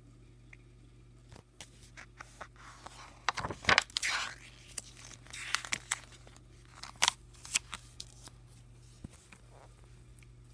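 Pages of a paper graphic novel being turned by hand: a run of rustling, brushing and crinkling paper noises with sharp clicks, loudest a few seconds in and again near the end of the page turn.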